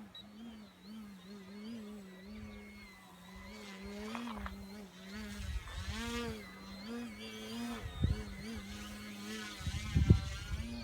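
Electric motor and propeller of an MX2 EPP foam RC plane droning in flight, the pitch wavering up and down as it flies. Low rumbles of wind on the microphone come and go in the second half.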